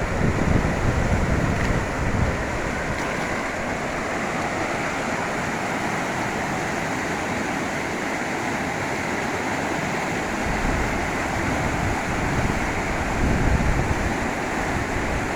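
Waterfall rushing: a steady roar of falling water, with gusts of wind buffeting the microphone near the start and again in the second half.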